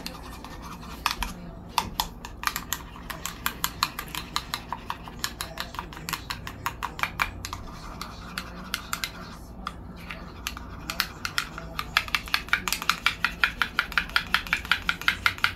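Metal spoon clinking against a small ramekin while stirring dipping sauce: a run of quick clicks that grows louder and faster for the last few seconds.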